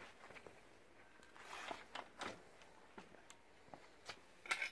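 Faint handling noises of a ski and its metal tuning vise being worked on: scattered light clicks and soft rustling, with a louder click and scrape near the end.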